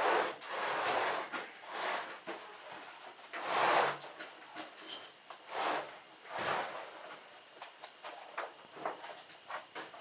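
A freshly sawn shagbark hickory board dragged and slid across the cut face of the log, wood scraping on wood in several long swishes, followed by a few light knocks and clicks as it is lifted off.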